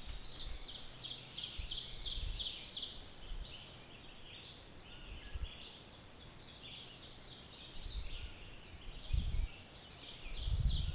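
Outdoor nature ambience: rapid, repeated high chirps carry on throughout, with low rumbles a couple of times near the end.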